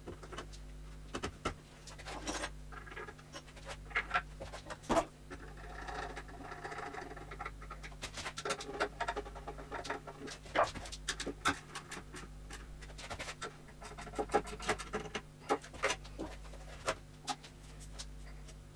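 Irregular knocks, clicks and scraping as wooden furniture parts and tools are handled during assembly, over a steady low hum.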